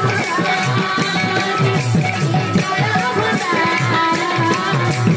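Live devotional kirtan music: quick hand-drum strokes and jingling percussion driving a steady dance rhythm, with a woman singing the melody over it through the sound system.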